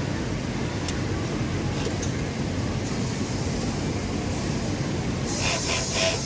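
Steady machine noise of sewing machines running on a garment factory floor, with a short hissing burst near the end.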